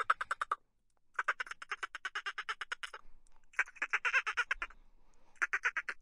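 Dolphins' pulsed underwater chatter: four bouts of rapid, evenly repeated pulses, about a dozen a second, with short pauses between them. The first bout ends about half a second in, and the last starts near the end.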